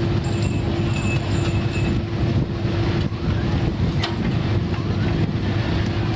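Boat engine running steadily: a constant low rumble with a steady hum tone over it.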